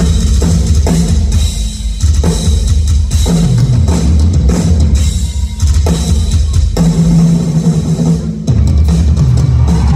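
Live rock drum solo on a kit with double bass drums: fast, continuous bass drum strokes under snare hits and ringing cymbals, loud and dense, with the pattern shifting a few times.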